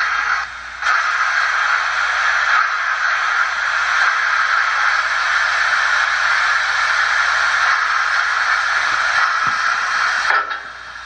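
Steam hiss from the QSI Titan-U DCC sound decoder in a brass C53 model steam locomotive, played through its small speakers. A steady hiss that breaks off briefly just under a second in, then runs on and stops about ten and a half seconds in.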